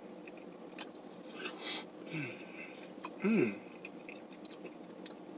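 A person chewing a mouthful of stuffed-crust pizza up close, with small wet clicks and smacks. A short hummed "mm" with falling pitch comes a little past halfway.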